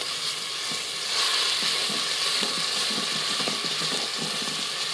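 Minced garlic sizzling in hot rendered chicken fat and oil in a stainless steel Instant Pot inner pot, with a wooden spoon scraping and stirring it around the bottom. The sizzle swells about a second in and then holds steady.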